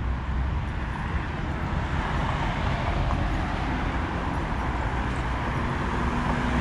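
Street traffic: a steady rumble and hiss of passing vehicles, with a low engine hum coming in near the end.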